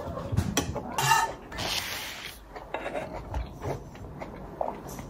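Kitchen clatter: dishes and cutlery clinking and knocking, with one ringing clink about a second in.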